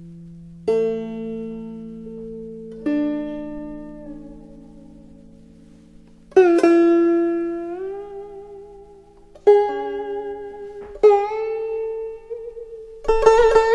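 Slow solo melody on a plucked string instrument: single notes picked a few seconds apart, each ringing on and fading, some bending upward or wavering in pitch, then a quick run of notes near the end.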